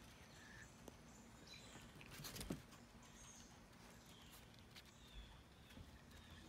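Near silence, with a faint patter of small dogs' paws and claws on decking and a few light clicks, the clearest about two and a half seconds in.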